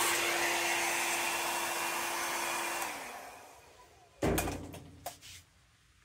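Hand-held hair dryer blowing steadily with a constant hum, switched off about three seconds in and winding down. Two short knocks follow about a second apart.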